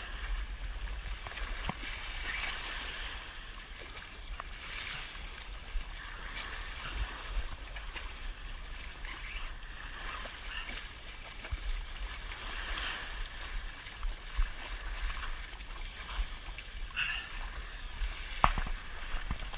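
Shallow seawater sloshing and splashing at the shoreline in surges every few seconds, with a few sharp clicks and a low wind rumble on the microphone.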